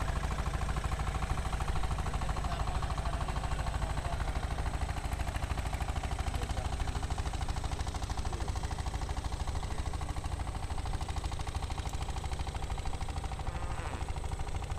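Small boat's engine idling steadily at low revs, a fast, even chugging.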